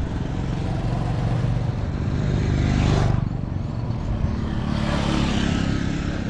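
Road traffic passing close by: motor vehicle engines running, one growing louder to a peak about three seconds in and another swelling near the end.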